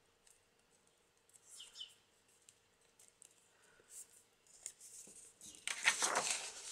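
Cardstock and paper being handled: faint soft rustles, then a louder rustle of paper near the end as the folded card pocket is lifted off the sheet.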